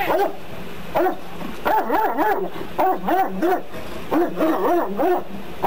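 Police K9 dog barking over and over in short, quick bursts.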